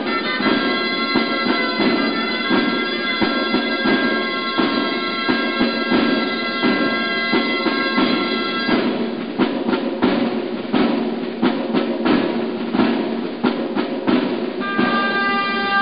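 Gralles (Catalan shawms) playing a melody over a timbal drum, the traditional music that goes with castellers' human towers. The reeds drop out a little past halfway, leaving the drum alone, and come back in near the end.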